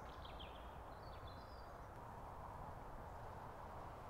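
Faint outdoor background with a few short high bird chirps in the first second and a half, over a steady low background noise.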